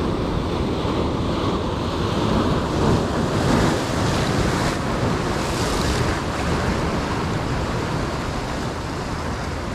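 Ocean surf breaking and washing over the rocks of a jetty, a steady rushing sound that swells a little about three seconds in.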